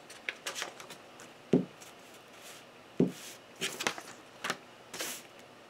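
Handling noise: paper rustling and crinkling in the hands, with clicks, and two dull thumps on the table about a second and a half apart.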